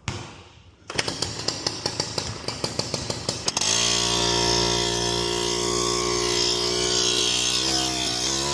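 A small 50cc two-stroke moped engine is being started. For about two and a half seconds it sputters with rapid, uneven firings, then it catches and runs steadily, revving up a little near the end.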